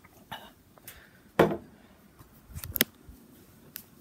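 Handling noise from a handheld camera: a few sharp taps and bumps against the hand and body. The loudest comes about a second and a half in, and a quick cluster follows near three seconds.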